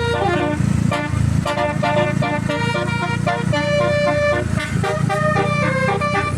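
Telolet multi-tone bus horn playing a tune of short, stepped notes that change pitch several times a second, over a steady low hum.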